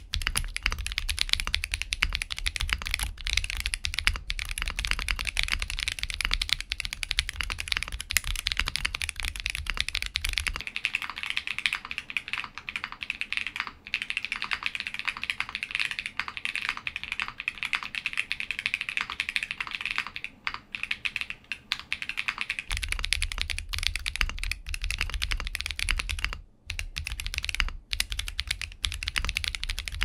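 Continuous fast typing on a mechanical keyboard fitted with stock, unlubricated Akko Cream Blue tactile switches and a polycarbonate plate without the silicone pad, giving a super creamy keystroke sound with a few short pauses. The recording switches from a stereo recorder to the camera microphone about ten seconds in, losing its low rumble, and goes back to the stereo recorder about two-thirds of the way through.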